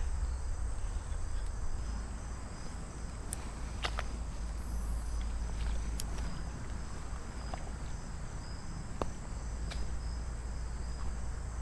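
Crickets chirping steadily in a fast, even pulse over a low outdoor rumble, with a few sharp clicks scattered through.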